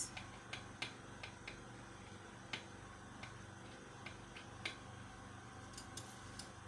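Faint, irregular light clicks and ticks of a hot soldering iron tip being worked along net lace, melting through it to trim out the design, over a low steady hum.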